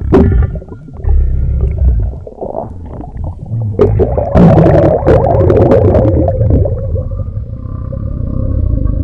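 Bloated, overfull stomach growling and gurgling: low rumbles and irregular gurgles with a few sharp pops, then from about four and a half seconds in one long, drawn-out growl holding a steady pitch.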